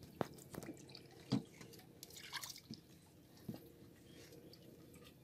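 Faint drips and small splashes of water as a hook-chain fishing line is hauled by hand out of the water, with a few soft clicks and knocks in the first few seconds.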